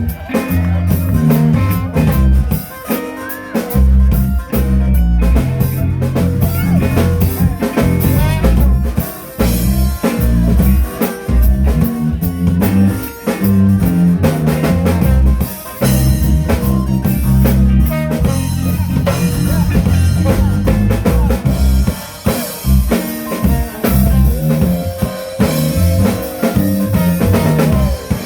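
A live band playing with a full drum kit, guitar and a moving bass line, with a long held note near the end.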